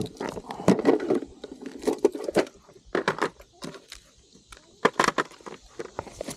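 Irregular clicks and knocks, some in quick clusters, of gear being handled and set down.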